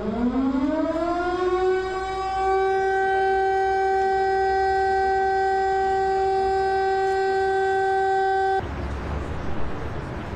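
A siren winds up in pitch over about two seconds, then holds one steady, loud tone and cuts off suddenly near the end. It is sounded as a memorial signal for the victims of the explosion.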